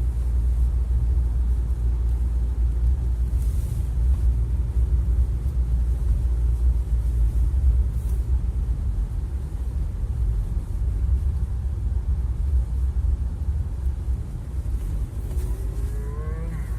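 Steady low rumble of a car's engine and tyres heard from inside the cabin while driving over a snow-covered road.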